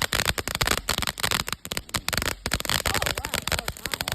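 A consumer firework crackling: a dense, irregular run of sharp pops and snaps, thinning out briefly in the middle.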